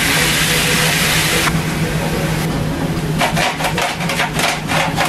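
Ground turkey sizzling in a hot frying pan, loud at first and dropping suddenly about one and a half seconds in. From about three seconds in, a seasoning shaker is shaken over the pan in a quick run of rattling shakes, over a steady low hum.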